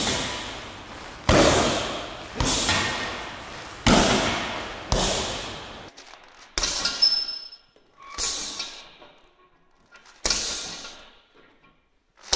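Gloved strikes landing on a hanging heavy punching bag: about eight separate heavy thuds, one every second or two. Each thud rings on briefly in the room, and the hits come a little further apart in the second half.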